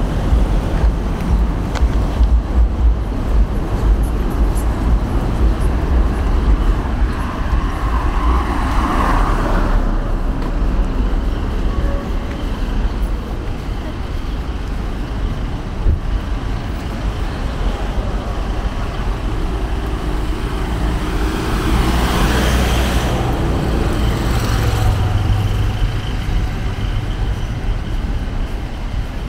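Road traffic: a steady low engine rumble with vehicles passing by, the loudest pass-bys about nine seconds in and again from about twenty-one to twenty-five seconds in.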